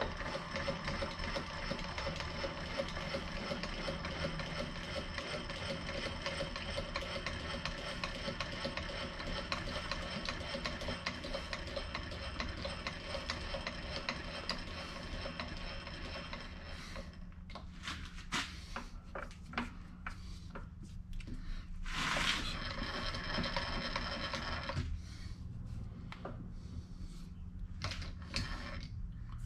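Vertical milling machine running while a valve relief is cut into a piston crown, making a steady machine whine. The whine stops about two-thirds of the way in, gives way to a few clicks and knocks and a short loud noise, comes back for a couple of seconds, then stops again.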